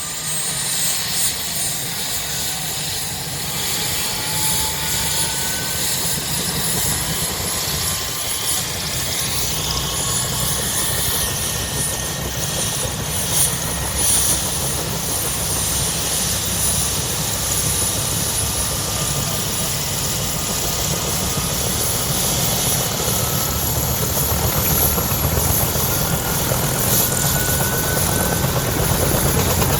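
Bell UH-1D Huey helicopter starting up: the high turbine whine climbs slowly in pitch as the engine spools up, over a low, fast rotor beat that grows steadily louder.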